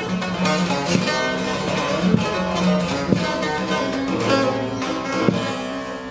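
Divan sazı, a long-necked Turkish bağlama with a carved mulberry bowl, played solo: quick picked notes over strings that ring on.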